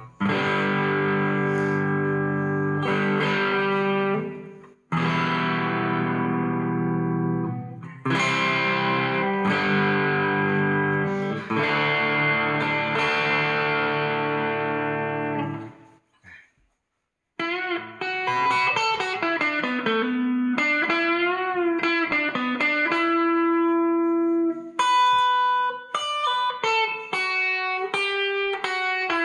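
Electric guitar played through a Line 6 crunch classic-rock patch on the '58 Fender Bassman amp model with a distortion stomp. Held chords ring for about sixteen seconds, then after a short break come single-note lead lines with bent notes and vibrato.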